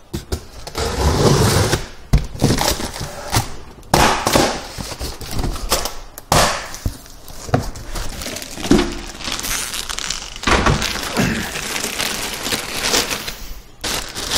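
Unboxing handling noise: a cardboard box scraped and knocked about and the plastic bag around a computer case crinkling, with several sharp knocks along the way.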